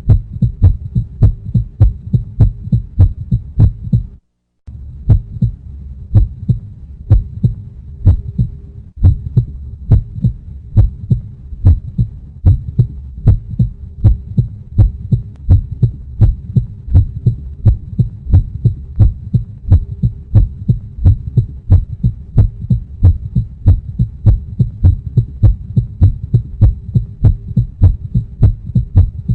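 Heartbeat sound effect: a steady, even rhythm of low thumping beats over a faint steady hum. It cuts out for a moment about four seconds in, then carries on.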